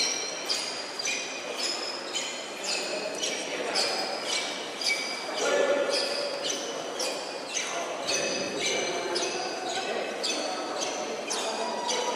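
Steady, even train of ringing strikes, about three a second, each with a bright metallic ring, over a murmur of voices in a large echoing hall.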